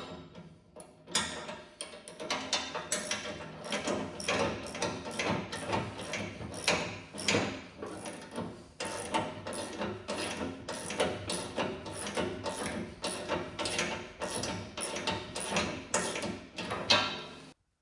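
Hand ratchet wrench clicking in quick runs of strokes as bolts are turned, with a steady tone underneath.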